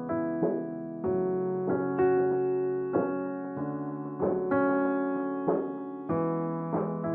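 Background music: a piano or electric piano playing slow chords and notes, each struck and left to fade.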